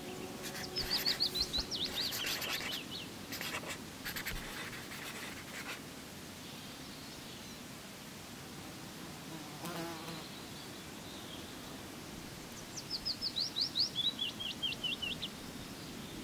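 Outdoor ambience: a faint steady hiss with two short runs of rapid, high, falling chirps, one about a second in and one near the end, and a brief lower call about ten seconds in.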